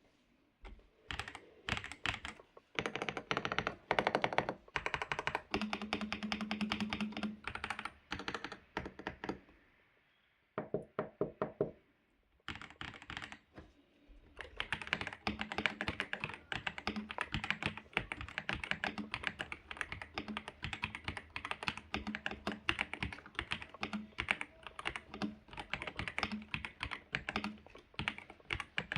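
Typing on an AJAZZ AK820 mechanical keyboard with Sea Salt switches: bursts of fast keystrokes with short pauses, a quick run of duller, lower-pitched key presses about eleven seconds in, then steady fast typing from about halfway on.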